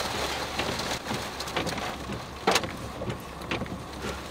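Heavy rain pelting a vehicle's windshield and roof, heard from inside the cab as a steady rush. A few sharp knocks of harder drops or stones strike the glass, the loudest about two and a half seconds in.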